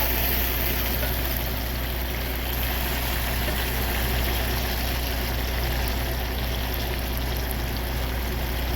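Steady low hum of an idling truck engine, with an even hiss over it throughout.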